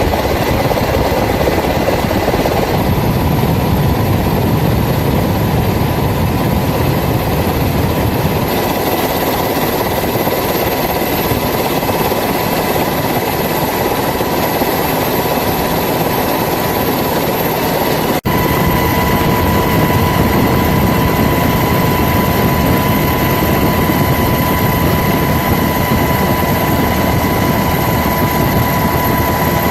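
Steady helicopter engine and rotor noise with a high, steady whine. It breaks off for an instant about 18 seconds in, after which the whine is stronger.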